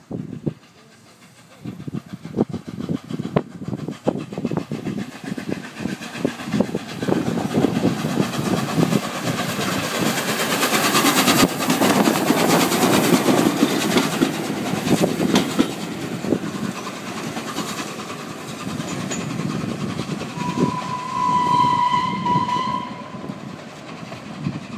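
A1 Pacific steam locomotive Tornado passing through at speed: rapid exhaust beats and the clatter of wheels over the rail joints, growing louder as it comes by close, loudest about halfway through, then fading as it runs away. A steady whistle sounds for about two seconds near the end.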